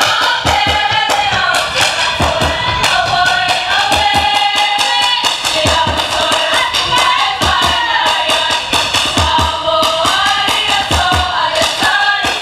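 Group of girls singing a Pacific Island song together in chorus, backed by regular drum beats.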